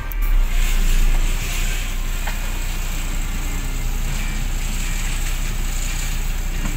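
UD Croner garbage truck's diesel engine running with a steady low rumble, swelling in the first second and then holding even.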